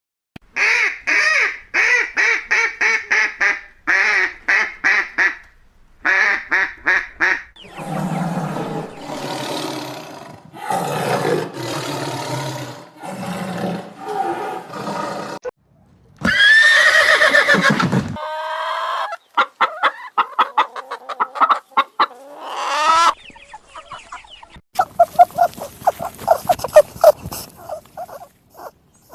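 Recorded calls of several different animals in turn. It opens with runs of short, rapidly repeated calls, and a long loud call comes about sixteen seconds in.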